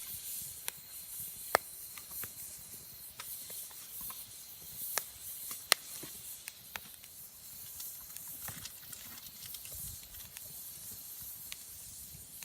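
Wood campfire burning: a steady hiss with scattered sharp crackles and pops, the loudest about a second and a half in and near the middle. The hiss is moisture escaping still-damp wood.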